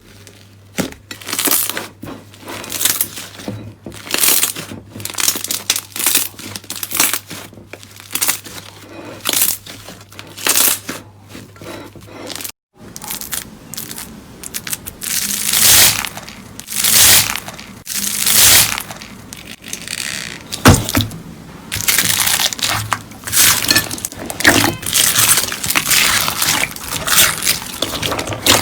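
Slime being pressed and squeezed by hand, giving repeated crackling and popping bursts about once a second. An abrupt cut about halfway through brings a louder clip of the same kind; a low steady hum sits under the first half.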